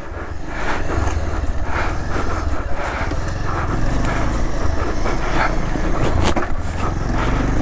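Bajaj Pulsar 220F motorcycle being ridden: a steady, loud low rumble with noise over it, building up over the first second.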